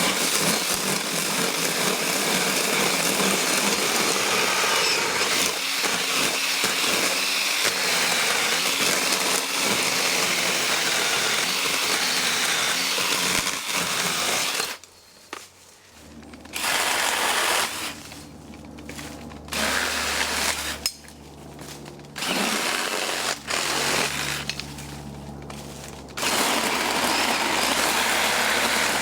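A Black & Decker Alligator battery-powered lopper chainsaw running and cutting through branches. It runs loud and continuous for about the first half, then stops. In the second half it comes back in several shorter stretches, with quieter gaps between them that hold a low steady hum.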